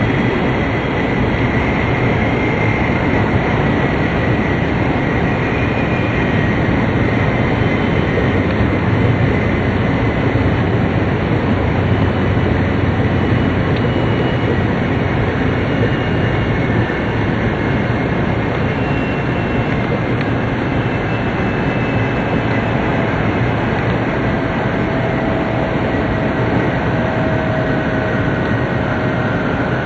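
Tōhoku Shinkansen Hayate train running at speed, heard from inside the passenger car: a steady rumble of running noise with faint whining tones that drift slowly in pitch.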